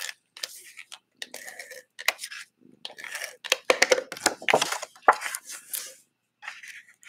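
Cardstock being handled: a tape runner scraping along the back of a card panel, then the paper rustling and tapping on the desk as the panel is flipped and pressed down. The sound comes in irregular short scrapes and sharp taps, busiest about halfway through.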